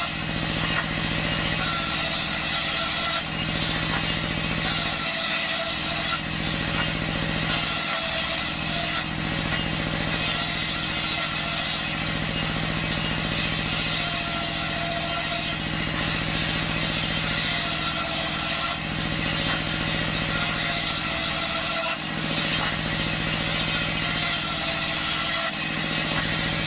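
Belt-driven circular saw bench ripping waru wood, its stationary engine running steadily underneath. A hissing, high-pitched cutting noise rises each time the blade bites into the timber and drops back between passes, repeating every few seconds.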